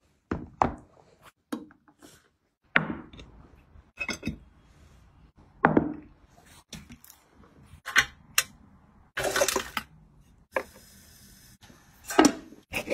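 A quick series of short kitchen handling sounds: trays and plates knocked and set down, raw food handled, and clinks of dishes, with a brief steady hiss a little past the middle. Near the end a sharp knock comes as the lid of an electric cooker is handled.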